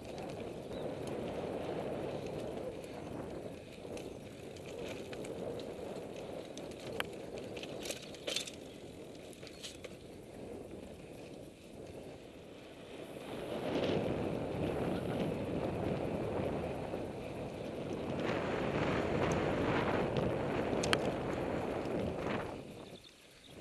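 Mountain bike rolling fast over dirt and sandy trail: tyre noise and wind buffeting the on-bike microphone, louder in the second half, with a few sharp clicks and rattles from the bike.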